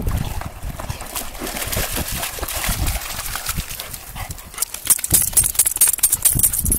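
A wet dog splashing out of shallow water onto gravel, then shaking its coat from about four and a half seconds in: a rapid, hissing spray of water flung from its fur.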